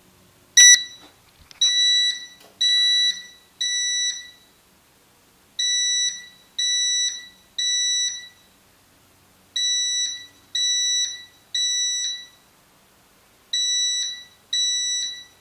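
A fire alarm set off in drill mode, sounding the temporal-three evacuation pattern: three half-second beeps, a pause, then the pattern again, about every four seconds. A sharp click comes just before the first beep.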